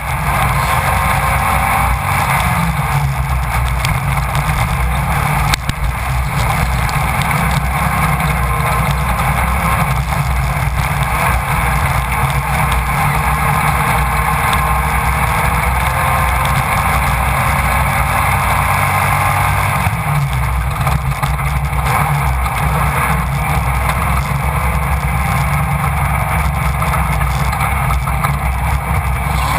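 A Class 1600 off-road race car's engine running hard at high revs, heard from the onboard camera over heavy wind and road noise. It dips briefly about five seconds in.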